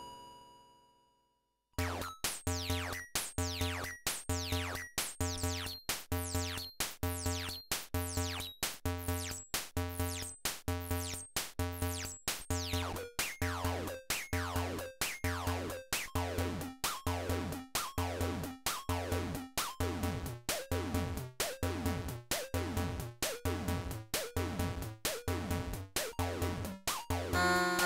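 Synthesizer, a modular rig with a Harmonic Engine, playing a looping sequenced pattern of about two notes a second. Each note is a low tone with a pitch sweep falling through it, and these tails grow longer and slower over the second half. The pattern starts about two seconds in.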